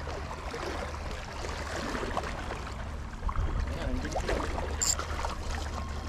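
Small waves lapping against a rocky shoreline, over a steady low rumble, with a few faint short knocks and splashes scattered through.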